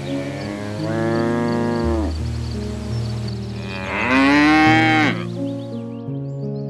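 Cow mooing twice: a call about half a second in that lasts over a second, then a louder one about four seconds in, each dropping in pitch as it ends. Soft background music with slow held notes plays beneath.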